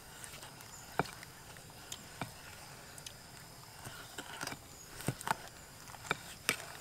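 Wooden spoon stirring a wet chili-flake sauce in a glass bowl, with a few light, scattered clicks as the spoon knocks against the glass.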